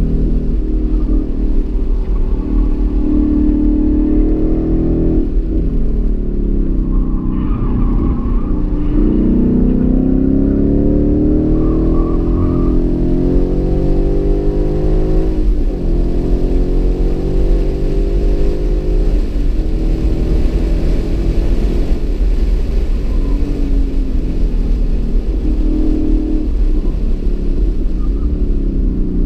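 2015 Ford Mustang GT's 5.0-litre V8 driven hard on a race track, heard from inside the cabin: the engine note climbs and drops several times as the car accelerates and slows through the corners, over a constant low rumble.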